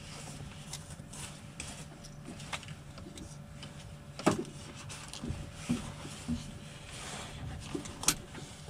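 Handling noises inside a small aircraft's cockpit: scattered clicks and knocks, the loudest about four seconds in and near the end, over a steady low hum.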